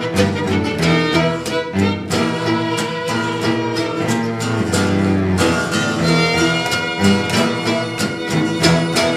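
Live acoustic string band playing an instrumental tune: bowed violin and cello over strummed acoustic guitar and mandolin, with a regular strummed rhythm.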